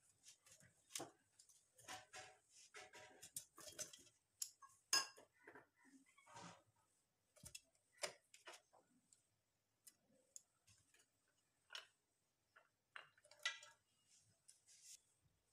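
Chopped vegetables and leaves dropped by hand into a stainless steel mixer-grinder jar: scattered soft taps, rustles and light clinks, the loudest a sharp tap about five seconds in.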